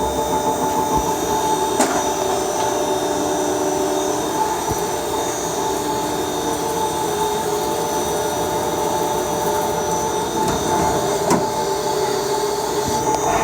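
CNC milling machine running steadily: spindle and cutting noise with several steady whining tones, broken by a couple of sharp clicks.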